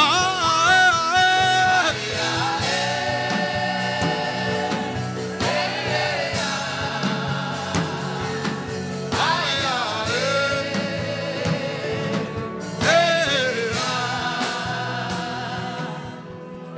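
Gospel worship chant: sung phrases with long held notes over a steady instrumental backing, fading out near the end.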